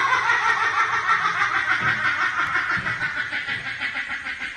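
A person laughing hard: a long run of rapid, high-pitched laughs that fades slowly.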